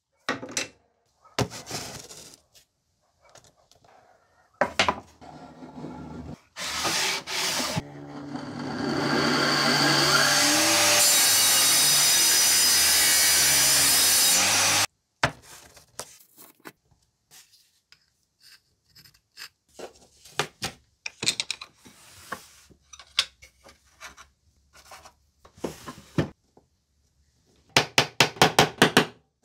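A bench power saw spins up and runs for about seven seconds, cutting wood, then cuts off suddenly. Around it are scattered knocks and rubbing of wood handled on the bench, and near the end a quick run of about ten light hammer taps.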